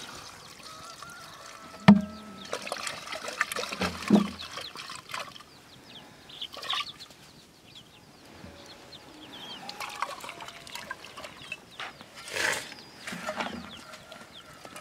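Water poured from a plastic jerrycan into a metal pot and later into a steel bowl, with a few sharp knocks of the vessels. Hens cluck in the background.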